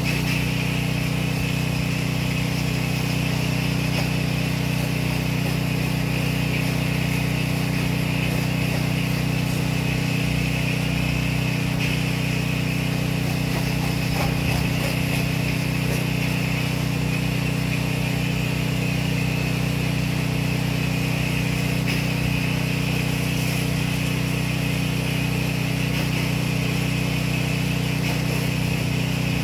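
Pressure washer's small engine and pump running steadily at a constant speed.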